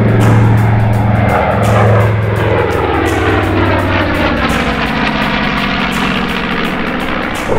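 North American B-25 Mitchell bomber's twin radial piston engines making a pass, the engine note dropping in pitch from about three seconds in as it goes by.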